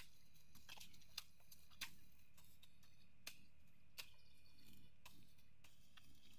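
A long-handled blade chopping and scraping grass out of the mud of a rice-paddy dike: sharp, faint strikes at an uneven pace, about one every half-second to second.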